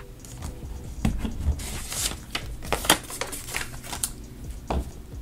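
Paper dollar bills being counted by hand: crisp rustles and snaps as notes are flipped, pulled and laid down, one sharper snap a little under three seconds in.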